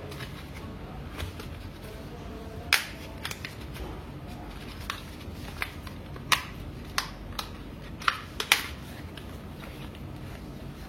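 Scattered sharp clicks and light taps of small plastic and metal parts being handled inside an open ASUS PN62 mini PC, about ten over several seconds, over a steady faint hiss.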